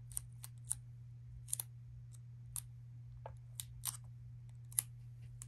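Small crisp clicks and crinkles of a plastic dust-removal sticker and its film backing being peeled and handled over a phone screen, a dozen or so scattered unevenly, over a steady low electrical hum.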